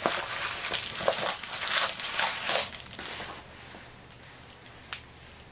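Plastic crinkling and rustling as a rolled diamond painting canvas is handled and rolled backwards to flatten it. The rustling dies down after about three seconds, and a single sharp click comes near the end.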